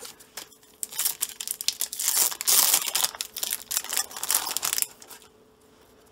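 Foil wrapper of a baseball card pack crinkling and tearing as it is opened by hand, a dense crackle that starts about a second in and stops shortly before the end.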